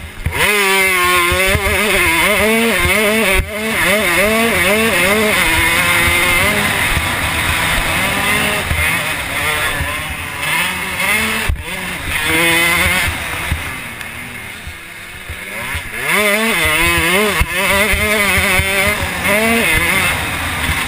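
Motocross bike engine heard on board under hard racing throttle, its pitch climbing and falling over and over as the rider revs through the gears and rolls off for corners.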